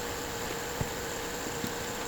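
2008 Lexus IS250's V6 running steadily after a spark plug and PCV valve change: an even hum and hiss with a few faint clicks.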